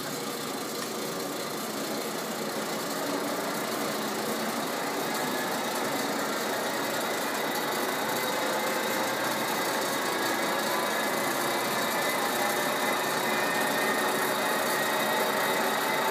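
Large VDF engine lathe running at high spindle speed, a steady mechanical gear whine that grows gradually louder and climbs slightly in pitch as the spindle comes up to speed.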